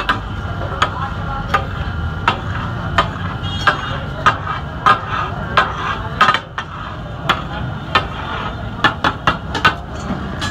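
Katakat: flat steel chopping blades striking a large metal griddle as meat is chopped on it, in a steady rhythm of sharp clacks about every three-quarters of a second, with a quick run of strikes about nine seconds in.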